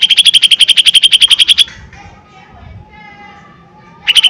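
Cucak ijo mini (lesser green leafbird) singing its loud "tembakan" volley: a fast rattling burst of evenly repeated high notes lasting about a second and a half, softer warbling notes, then a second rapid burst near the end.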